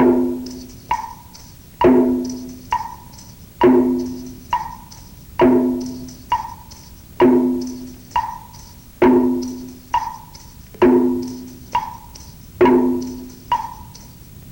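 A percussion beat keeping time for the exercise. A strong low, ringing strike alternates with a lighter, higher knock, about one sound every 0.9 s, eight pairs in all, with a faint jingle between them.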